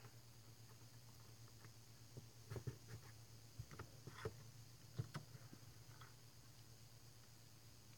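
Near silence over a low steady hum, with a few faint clicks and taps from fingers handling a small printed circuit board and its wire leads, clustered in the middle.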